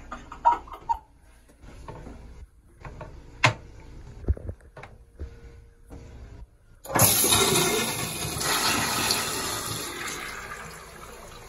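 Gerber Ultraflush pressure-assisted toilet flushing: a sudden loud rush of water about seven seconds in, fading over the following few seconds. A few sharp clicks and knocks come before it.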